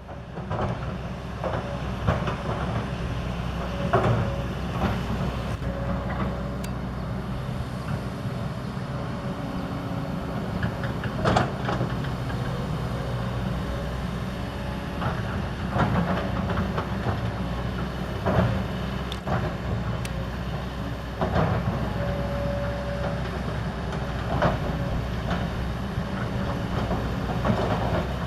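Kobelco SK200 hydraulic excavator's diesel engine running steadily under load, with irregular sharp metallic clanks from the bucket, boom or tracks as it works the road surface.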